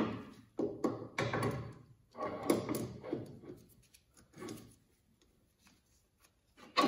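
Metal roller chain rattling and clinking as it is handled and looped over a go-kart's clutch sprocket, in several short irregular bursts over the first three seconds or so and one softer rattle midway.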